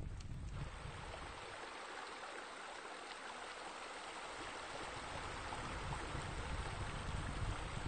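Steady rush of running, splashing water, starting about half a second in, with a low rumble underneath that drops away in the middle and comes back near the end.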